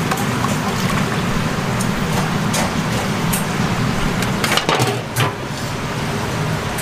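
Metal cooking utensils scraping and knocking against steel pots, a ladle in a pot of sweet-and-sour sauce and a spatula in a wok of fried chicken, with a handful of sharp knocks clustered about four and a half seconds in. A steady low rumble runs beneath.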